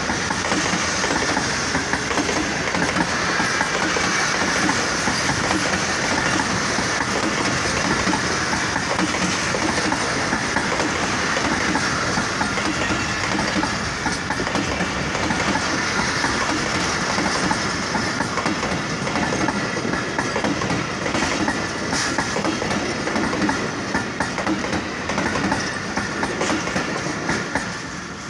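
Passenger train coaches rolling past close by: a steady, loud run of wheel noise on the rails that drops away near the end as the last coach goes by.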